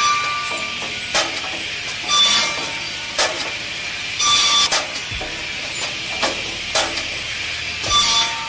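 Homemade rotating-drum firewood cutter running steadily, its cutting disc biting through the upright poles about once a second, each cut a short, sharp burst over the machine's steady drone.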